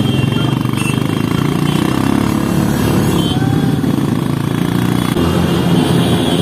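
Engines of many motorcycles and scooters running together at riding speed, a steady low rumble, with a slight change in the mix about five seconds in.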